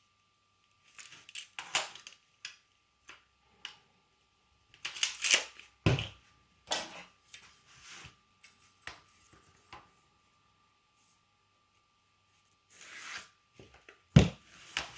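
Measuring and marking tools handled on a plywood panel while its centre is found: scattered taps, clicks and short scraping strokes, with a sharp knock near the end.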